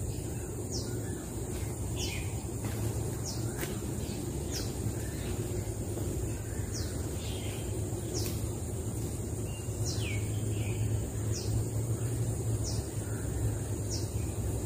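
A forest bird repeating a short whistled note that falls sharply in pitch, about ten times, roughly one call every second or so.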